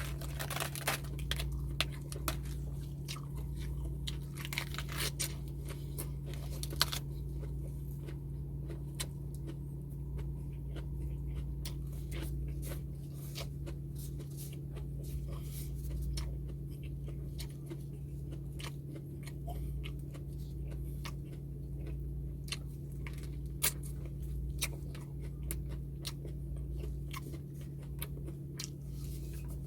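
Close-up eating sounds: wet chewing and crunching of food, with many sharp crisp clicks, densest in the first several seconds, over a steady low hum.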